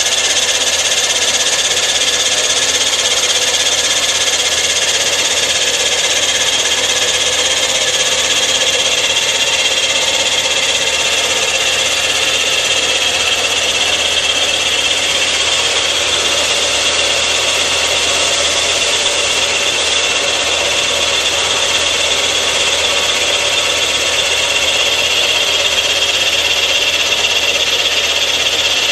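Rottler F90Y CNC machine milling the firedeck of a Caterpillar 3500 engine block with an end mill, a steady cutting noise with a high-pitched whine, as it machines around the water holes for repair.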